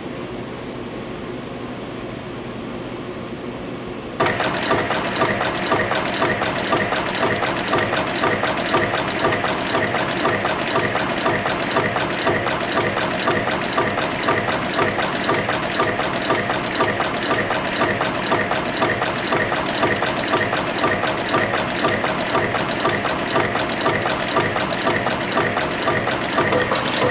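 YHM FB-220 spring forming machine: a steady hum, then about four seconds in the press and bending units start cycling, a loud, fast, even run of mechanical strokes as it shears and bends wire into springs.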